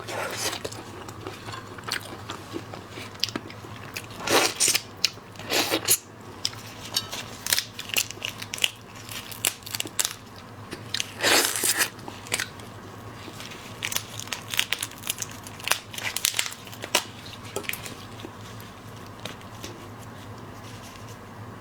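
Close-miked eating of seafood: crunching bites and chewing with many small crackling clicks, and a few louder bites around four, five and a half and eleven seconds in.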